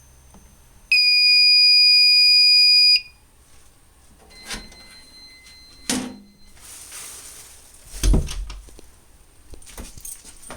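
A fire alarm system's electronic sounder gives one loud, steady high-pitched tone for about two seconds, then cuts off. A few knocks and handling clunks follow.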